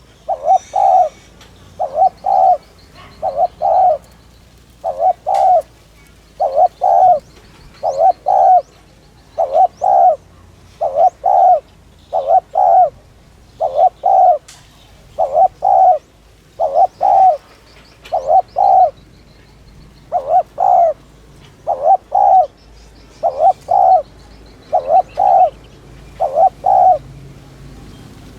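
Spotted dove cooing over and over in the quick 'thúc' style, each call a two-note coo repeated evenly about every one and a half seconds. Faint high chirps of small birds sound behind it.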